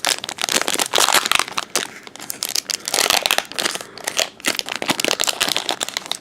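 Foil booster-pack wrapper being torn open and crinkled by hand, a dense run of crackling rustles, loudest about a second in and again about three seconds in.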